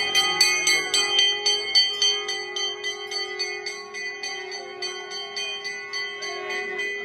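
Hanging brass temple bells struck over and over by devotees during aarti, about three strikes a second, their ringing tones overlapping and sustaining.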